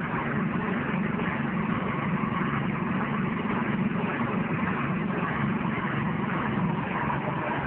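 The small engine of a corn-cob grinding machine running steadily: an even low drone with a noisy hiss above it, unchanging throughout.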